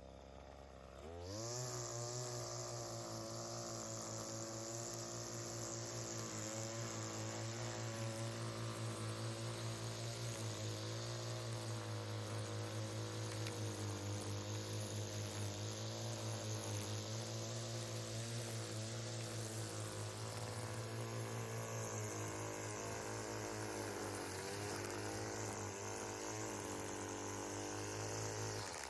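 A small engine of lawn equipment comes up to speed about a second in with a quick rise in pitch, runs steadily, and cuts off abruptly near the end.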